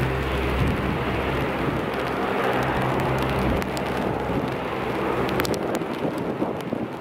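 DHC-8 (Dash 8) turboprop's engines and propellers running at taxi power, a low drone over a steady rushing noise. The drone fades about four seconds in as the plane swings around.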